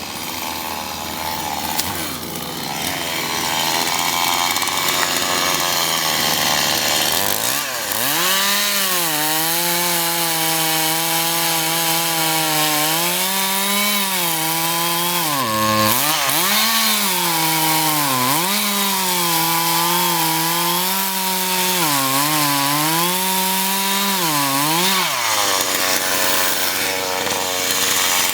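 Chainsaw engine running at high revs while cutting wood; from about eight seconds in, its pitch repeatedly sags and climbs back as the chain bites into the cut, until near the end.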